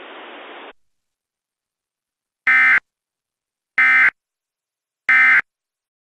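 Emergency Alert System SAME end-of-message data bursts: three identical short digital buzzes about 1.3 s apart, signalling the end of the alert broadcast.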